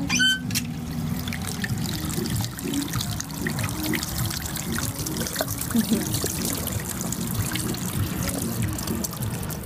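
A thin stream of water trickling steadily from a stone spout onto wet river rocks in a hand-washing fountain.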